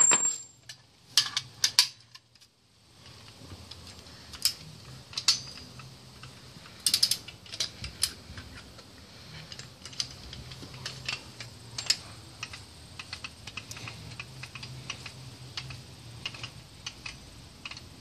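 Irregular sharp metallic clicks and ticks of a socket wrench being ratcheted and handled as a front-hub axle nut is run back on, some clicks coming in quick runs.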